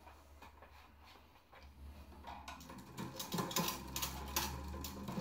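Hand-cranked bicycle drivetrain with a VECTr variably expanding chainring: the chain and the chainring's sliding tooth segments run with a quick, irregular clicking and rattling. It starts about halfway through and grows louder.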